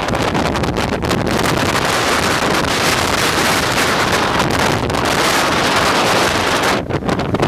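Hurricane storm wind buffeting the microphone: a loud, continuous rush of wind noise that drops briefly near the end.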